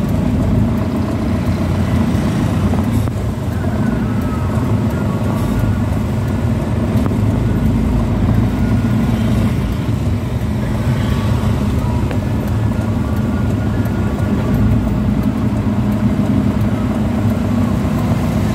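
Car engine and road noise heard from inside the cabin while driving: a steady low drone.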